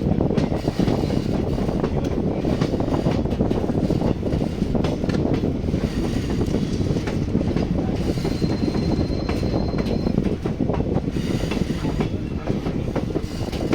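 Steady loud rumble of a moving vehicle, with frequent rattles and clicks. A thin, high steady whine lasts about two seconds just past the middle.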